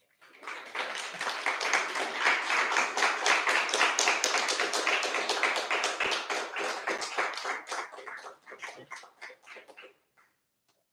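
Audience applauding: the clapping swells over the first couple of seconds, holds, then thins to a few scattered claps and stops near the end.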